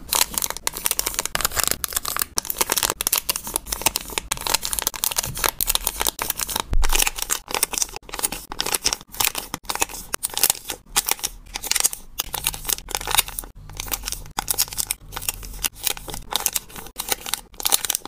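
Small clear plastic zip-lock bags crinkling and rustling under the fingers, with sticker labels being peeled off and pressed onto them. The crinkling is dense and runs with only brief pauses.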